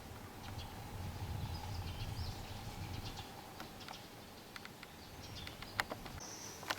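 Quiet outdoor ambience with a few short, high bird chirps and scattered sharp clicks. The loudest are two clicks about a second apart near the end.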